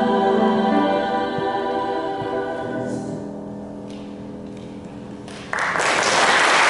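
Women's chorus holding the final sung chord, which fades away over about five seconds. Audience applause then breaks out suddenly near the end.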